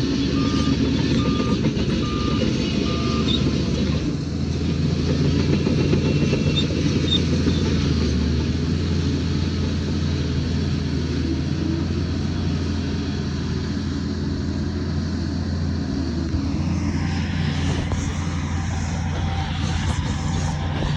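Heavy diesel earthmoving machinery running steadily under load. A reversing alarm beeps at a steady rate for the first three seconds or so, then stops.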